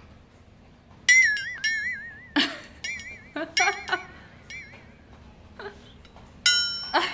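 A stainless steel dog bowl knocked about half a dozen times by a cocker spaniel puppy's muzzle as she eats from it on a tile floor. Each knock is a sharp clink followed by a high, wavering ring.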